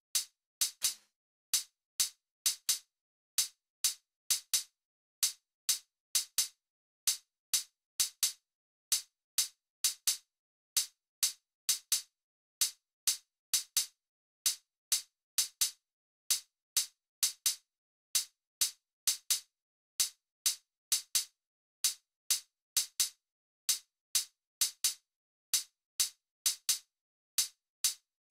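Programmed drum-machine percussion playing alone: short, bright, clicky hits, strongest in the highs, repeating in a steady pattern about two to three times a second at 130 bpm, with nothing else playing under them.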